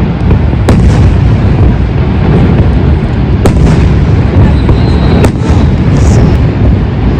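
Fireworks going off in a dense barrage: a continuous loud rumble of booms, with sharp cracks standing out about three times.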